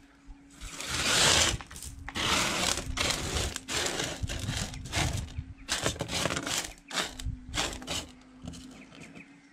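Washed sapphire gravel being swept and spread by hand across a metal sorting table, a run of gritty scraping and rattling strokes from about half a second in until near the end.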